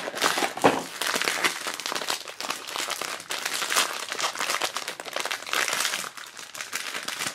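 A thin metallic foil blind bag crinkles and crackles as hands pull it from its cardboard box and open it, giving a dense stream of small rustles and crackles.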